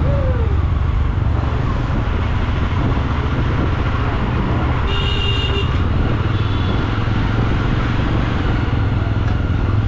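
Jawa 42 motorcycle's single-cylinder engine running steadily at low road speed while riding, heard from on the bike. A brief high tone cuts in about five seconds in.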